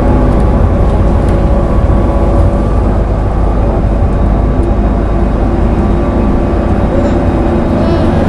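City bus in motion, heard from inside the passenger cabin: a loud, steady low rumble of drive and road noise with a faint steady whine above it.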